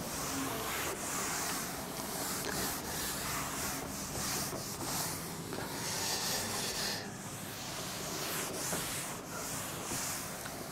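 Cloth duster wiping chalk off a chalkboard, in repeated rubbing strokes that swish one after another.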